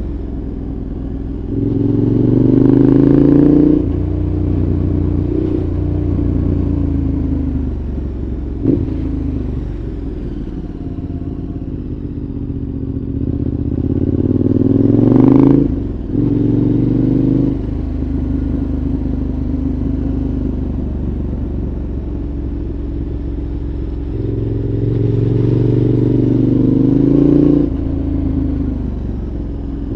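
2014 KTM 1190 Adventure's V-twin through a Giannelli aftermarket exhaust, heard onboard while riding: three bursts of throttle with rising revs, about two seconds in, around thirteen seconds in and around twenty-five seconds in, with the engine running lower off the throttle between them. A short sharp click comes as the throttle closes after the second burst.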